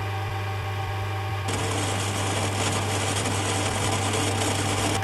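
Steady electrical hum with a faint high whine from the recording; about a second and a half in, a loud hiss of static cuts in abruptly and continues.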